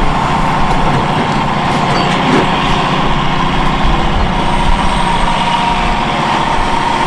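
Cat 352F hydraulic excavator's diesel engine running under load as it works a rock grapple, with a steady whine held over the engine noise.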